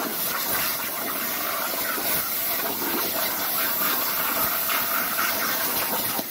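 Hypertherm plasma torch on a CNC plasma table cutting metal plate: a steady hiss of the plasma arc and air jet.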